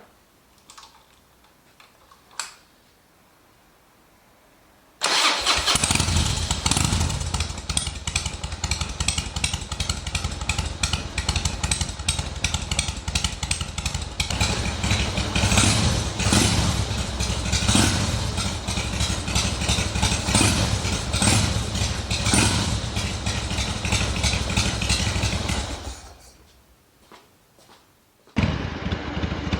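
Carbureted Harley-Davidson Twin Cam 88 V-twin, on Screamin' Eagle mufflers, running loud after a few quiet seconds with small clicks. It comes in suddenly about five seconds in, runs for about twenty seconds, cuts out, then runs again near the end.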